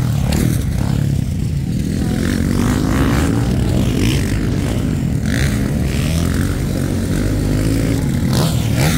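Motocross dirt bikes racing past and over a jump, their engines revving up and down in pitch.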